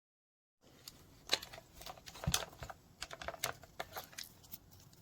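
Irregular plastic clicks and taps from hands working a small thermal label printer and its label roll, starting about half a second in.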